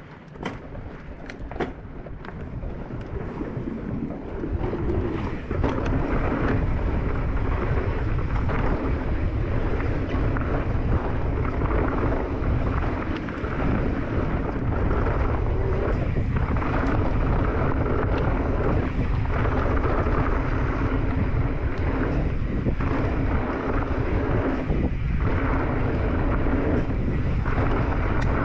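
Wind buffeting a handlebar-mounted camera's microphone on a mountain bike riding fast down a dirt trail, with rumbling riding noise. It builds over the first five or six seconds as speed picks up, then holds loud and steady; a few sharp clicks come near the start.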